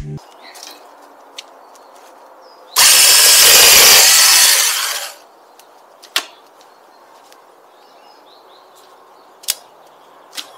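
A saw cutting through a branch: one loud, even cut of about two and a half seconds starting about three seconds in, followed by a few sharp snaps.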